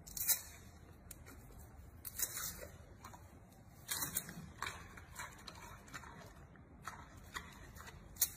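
Giant panda chewing bamboo shoots: irregular crisp crunches and clicks, with a few louder bites about two and four seconds in and near the end.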